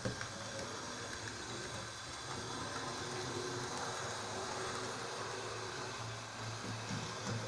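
Two Wrenn N7 OO gauge model tank locomotives running along model railway track, hauling a coach: the steady running noise of their small electric motors and wheels on the rails, with a low hum.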